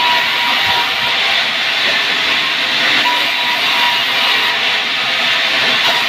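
Sawmill saw running through sengon (albizia) wood: a loud, steady hissing noise with a faint high whine that comes and goes.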